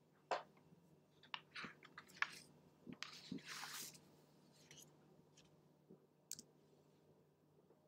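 Near silence: a few faint mouth clicks and a soft breath close to the narrator's microphone, about three and a half seconds in.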